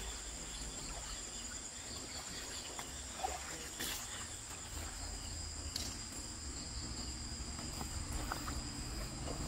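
Steady, high-pitched chorus of night insects, with a couple of faint clicks about four and six seconds in.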